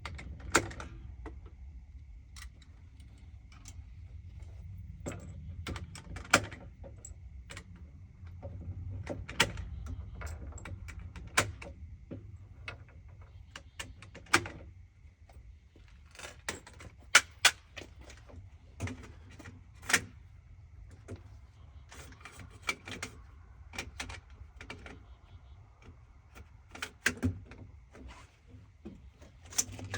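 A long, irregular series of sharp clicks and knocks, a few much louder than the rest, over a low rumble.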